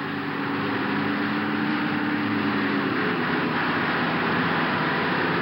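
Lorry engine running as the truck drives along a rough dirt track: a low engine hum over steady noise, the hum fading about three seconds in.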